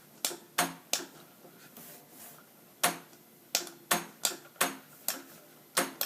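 Small toggle switches on a board being flipped one after another: a string of about a dozen sharp clicks at uneven spacing, with a pause of about two seconds after the first three.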